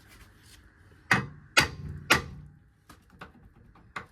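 A hammer striking a steel bolt three times, about half a second apart, driving it into the front suspension's lower ball joint mounting; each blow rings briefly, followed by a few light metal ticks.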